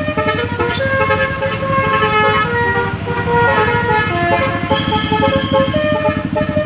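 Roof-mounted Basuri V3 telolet bus horn playing a tune: several trumpets sounding together in held notes that step from pitch to pitch, over a low rapid throbbing.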